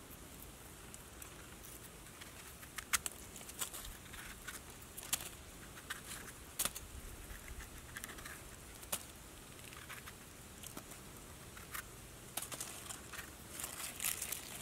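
Pocket knife scraping soil off the base of a freshly picked mushroom's stem: irregular light scratches and clicks, coming more thickly near the end.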